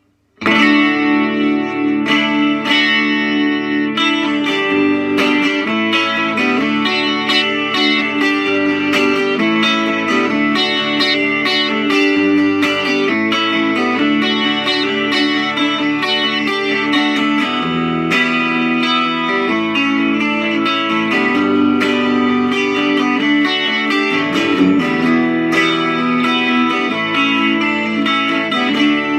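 Fender Telecaster 12-string electric guitar played through an amplifier on the middle pickup position, bridge and neck pickups together; a continuous passage of picked notes and chords starts about half a second in.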